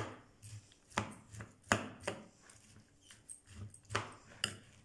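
A metal spoon stirring raw rice stuffing on a porcelain platter: irregular clinks and scrapes of the spoon against the plate, about one a second, over the soft rustle of the rice mix.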